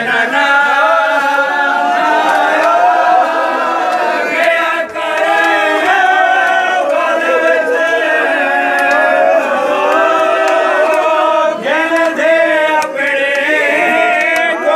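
A group of mourners chanting a nauha, a Muharram lament for Hussain, together in one voice.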